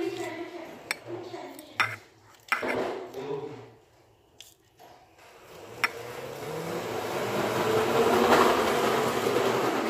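A few sharp metallic snips of small scissors, then a swelling rush of noise in the second half that grows louder and holds near the end.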